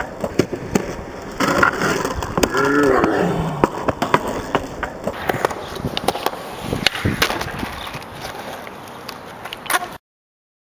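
A skateboard rolling on rough asphalt, with repeated sharp clacks of the board popping, striking the concrete curb and landing. A voice calls out briefly about two seconds in, and all sound cuts off abruptly near the end.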